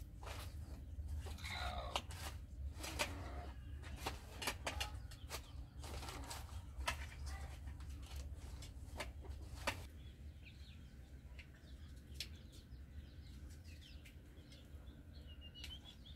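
Irregular sharp knocks and clatter over a low rumble, with birds chirping now and then; about ten seconds in the knocking and rumble fall away, leaving faint scattered bird chirps.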